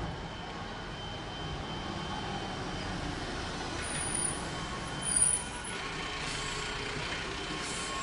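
Fire engine's diesel running steadily in the street, an even mechanical hum with a faint steady whine, and two short high squeaks about four and five seconds in.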